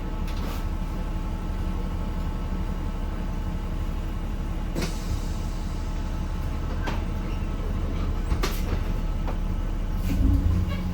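Cabin of a 1993 Gillig Phantom transit bus, its Cummins ISM inline-six diesel running with a steady low hum, with a few sharp rattles from the bus body. Near the end the engine note swells and begins to rise.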